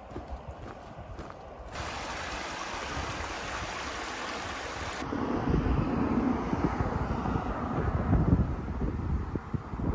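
A few footsteps on a dirt trail, then a small rocky creek rushing with a steady hiss from about two seconds in, cut off suddenly at about five seconds by gusty wind buffeting the microphone with a low, uneven rumble.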